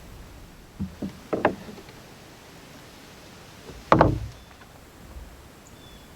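A few light wooden knocks, then one loud knock about four seconds in: rough-sawn poplar boards being handled and set against each other.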